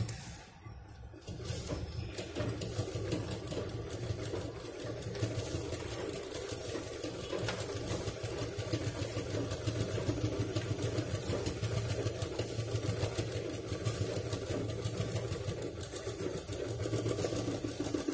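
Domestic sewing machine stitching a long straight seam through layers of fabric, foam and a zip, starting about a second in and then running steadily.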